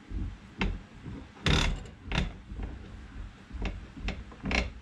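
Aluminum soft jaws being handled and set in a steel bench vise: a string of irregular metal clicks and clanks, the loudest about a second and a half in.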